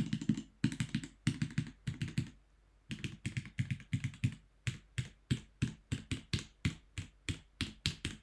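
Mechanical keyboard with Gateron Pro Yellow linear switches being typed on: fast bursts of keystrokes, a short pause about two seconds in, then single keys struck one at a time, about three a second.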